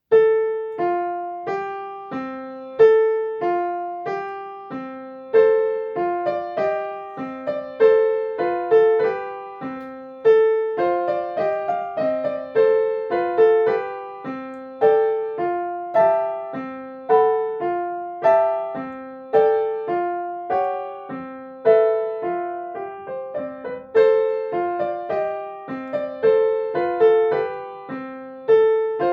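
Piano playing a slow, repeating bell-like figure: a few notes struck in turn, each ringing and fading, the pattern coming round again and again.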